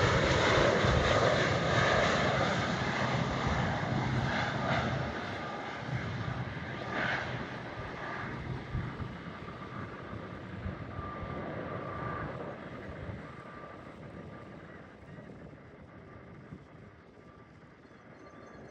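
Airliner's jet engines passing, loud at first and then fading steadily away, with a faint whine running through the rumble.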